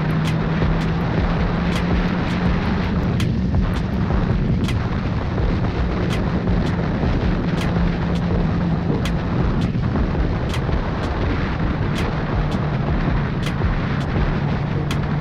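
Motorcycle engine running at a steady cruising speed under heavy wind buffeting on the microphone, with faint clicks repeating roughly once a second.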